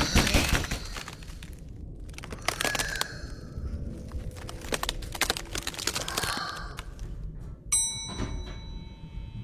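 Sound-effect thuds and clicks, then about three-quarters of the way through a single bell-like ding that rings on and fades slowly.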